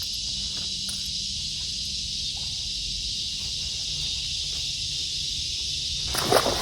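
Steady, even high-pitched chorus of insects droning along the creek, with no break in it. A brief louder burst of sound comes near the end.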